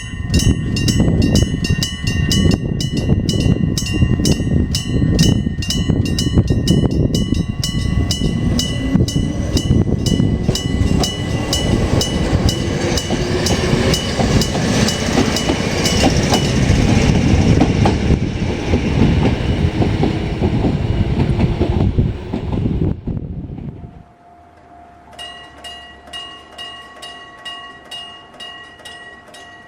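Electric level-crossing bell ringing with rapid, even strikes while a Hokuriku Railroad Ishikawa Line train passes with a heavy rumble; the bell stops and the train fades away. After a short break, another crossing's electric bell starts ringing, quieter.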